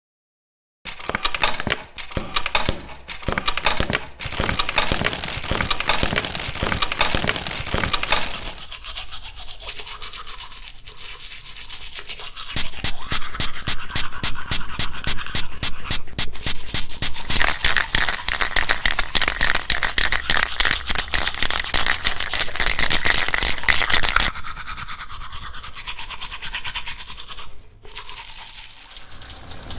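Rapid scratchy scrubbing in dense, fast strokes, starting about a second in. It comes in louder and quieter stretches.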